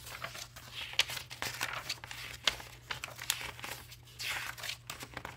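Paper pages of a thick Baron Fig Metamorphosis notebook rustling as they are turned by hand, with several short sharp flicks of paper.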